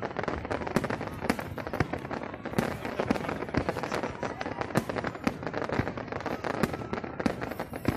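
Fireworks display: aerial shells bursting in a rapid, unbroken string of bangs and crackles, several a second.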